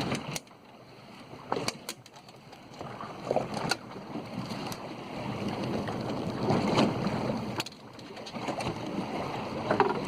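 Wind and water noise on deck of a fishing boat at sea, swelling and dropping unevenly, with a few sharp knocks.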